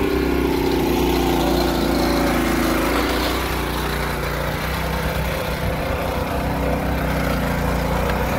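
Small engine of a tracked powered barrow loaded with rock, running steadily as the barrow is driven along.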